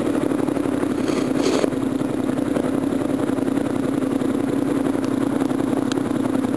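Motorcycle with an aftermarket slip-on exhaust running at a steady engine speed, heard from a camera inside the rider's helmet, with a brief rush of wind noise about a second in.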